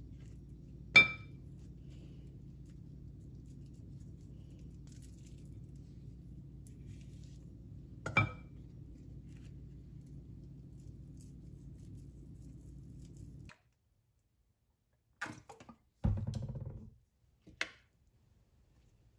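Food-prep clinks: a utensil taps twice against a glass mixing bowl, each a sharp, briefly ringing clink, over a faint steady low hum. About two-thirds of the way through the hum stops, and a few light clicks and a short clatter of kitchen utensils follow.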